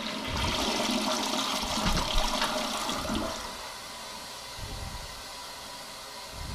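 Toilet flushing: a loud rush of water for about three and a half seconds, then a quieter steady run of water as the tank refills.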